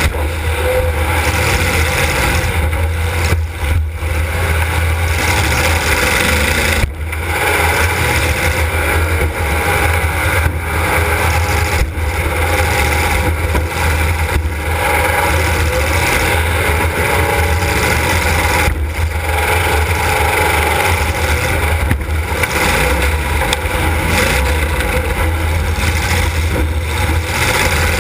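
Demolition derby car's engine running hard and loud, heard from inside the car, with a deep steady rumble and a few brief dips.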